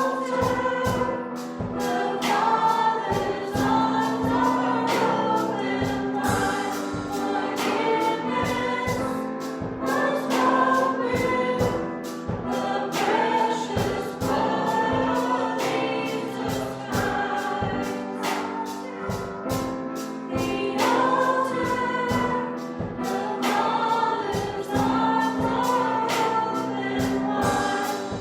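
Worship song with a choir of voices singing over band accompaniment and a steady beat.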